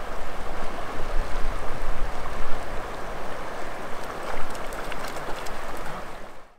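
Steady rush of a flowing river, with wind rumbling on the microphone underneath; it fades out near the end.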